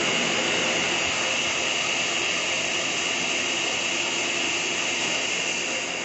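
Electric blender running steadily at one speed, blending a lemon drink mixture: an even whirring with a faint high whine.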